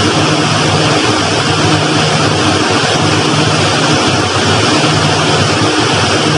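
Steady drone of a fishing trawler's engine and deck machinery while the trawl net is hauled aboard: a low hum under a loud, even rushing noise.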